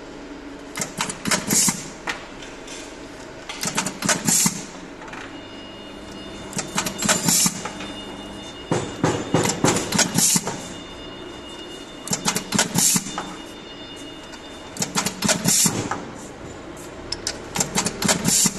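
Automatic O-ring assembly machine cycling: about seven short bursts of clacking with a sharp hiss, one every two and a half to three seconds as each fitting gets its O-ring, over a steady machine hum.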